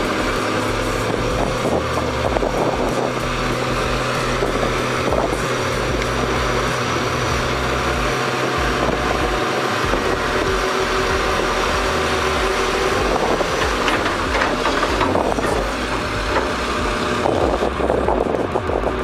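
Heavy diesel construction machinery running steadily, with scattered knocks and clanks in the last few seconds.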